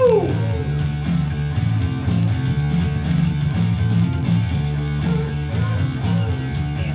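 Rock song playing, with a steady rhythm.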